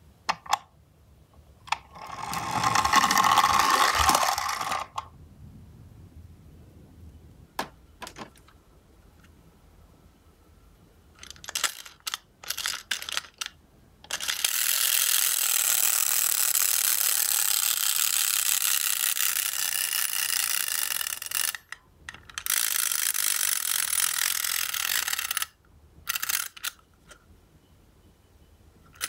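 Tin wind-up toy ambulance: its key is wound with a few clicks, then the clockwork motor runs with a steady whirring rattle for about seven seconds, stops for a moment, and runs again for about three seconds. Earlier there is a shorter, three-second whirr from the pull-back motor of a die-cast toy ambulance pressed along the table.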